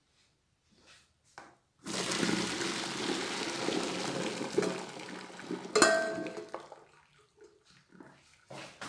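Hot water and blanched celery pieces poured from a metal pot into a plastic colander, splashing and draining for a few seconds starting about two seconds in. Near the end of the pour, metal clanks once with a brief ring.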